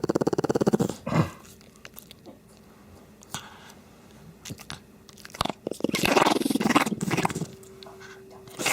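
Shih Tzu snoring with a fast fluttering rattle for about the first second, then stopping. Scattered clicks and smacking, chewing-like mouth sounds follow, with a longer noisy burst about two-thirds of the way through.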